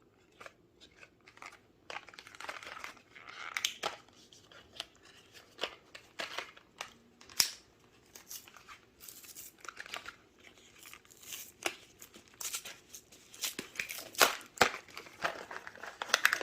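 Packaging of a miniature cap gun being torn open and handled: irregular crinkling and tearing of plastic and paper, with many small clicks and snaps.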